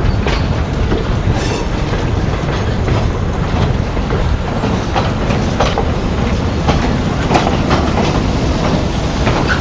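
Passenger train rolling slowly past at close range: a steady low rumble from the steel wheels, with irregular clicks and clanks as the coach's wheels pass over the rail joints of a short steel girder bridge.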